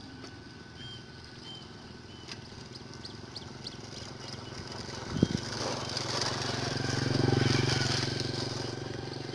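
A small engine passing by, swelling to its loudest a little after the middle and fading toward the end, with faint short chirps and a single knock about five seconds in.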